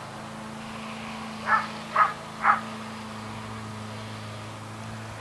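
Three short animal calls in quick succession, about half a second apart, over a steady low hum.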